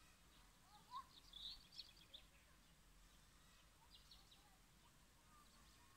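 Faint birds chirping: a cluster of short calls about a second in and a few more near four seconds, over a soft outdoor hiss.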